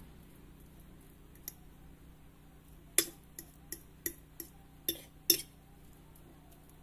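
A metal fork clicking against a dish while mashing a boiled garlic clove: one tap, then a run of about seven sharp clicks over a couple of seconds.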